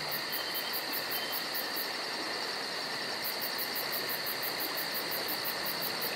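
Insects chirping in chorus: a steady high buzz with a fast, even pulsing of about five chirps a second over a constant hiss.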